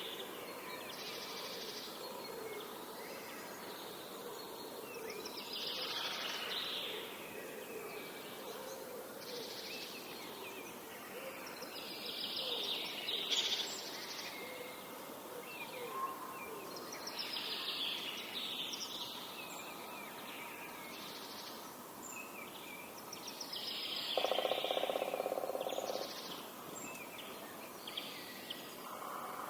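Outdoor nature ambience: a songbird repeats a short song phrase about every six seconds over a steady background hiss of insects and open air. A buzzing insect passes briefly near the end.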